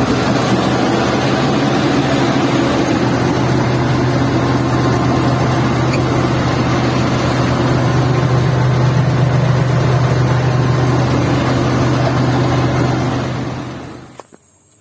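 Hydraulic excavator's diesel engine running steadily at close range, a loud low hum with a constant tone. It fades out about a second before the end, leaving faint ticks.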